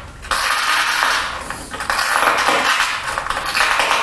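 Glass being pressure-flaked with a hand-held tool: a gritty scraping and crackling as small flakes break off the edge, in a few long strokes with brief pauses.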